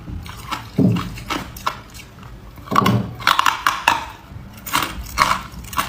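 A person biting and chewing ice, with loud, irregular crunches that come in clusters as the cubes crack and break up in the mouth.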